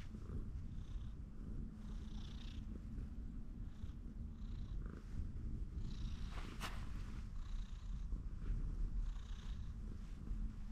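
Orange tabby cat purring steadily and continuously while being stroked on the head.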